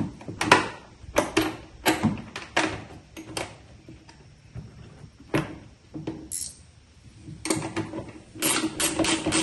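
GearWrench ratcheting wrench clicking as a bolt is turned: a stroke about every second at first, a few scattered clicks in the middle, then rapid clicking near the end.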